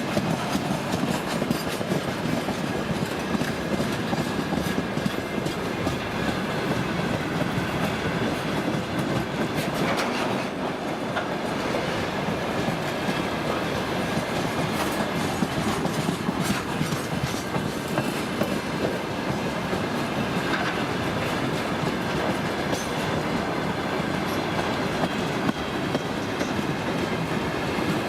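Loaded tank-car freight train rolling past at a steady pace, its wheels clacking over the rail joints.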